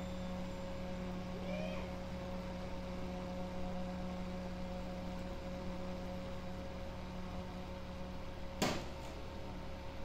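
Steady electrical mains hum from a transformer-powered electronics board, with a single sharp click near the end.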